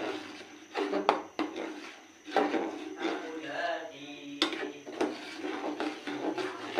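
Kitchen utensils clinking against dishes, a few sharp clicks about a second in and again around four to five seconds in, with a faint voice underneath.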